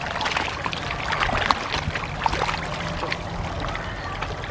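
A dense crowd of hybrid magur catfish thrashing at the water's surface while feeding, making a continuous patter of many small overlapping splashes.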